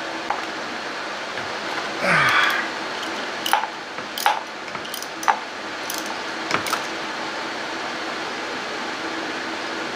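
Light metallic clicks and clinks of hand tools and engine parts, about half a dozen sharp ones spread over a few seconds, as a spark plug is worked out from under the ignition coils. A faint steady hum runs underneath.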